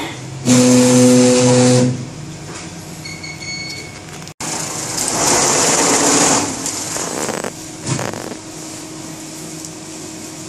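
Tajima multi-head embroidery machine running, its heads stitching at speed. A loud steady tone sounds for about a second and a half near the start. After a short break about four seconds in, a louder noisy whir swells, then settles into a steadier running noise with a low held hum.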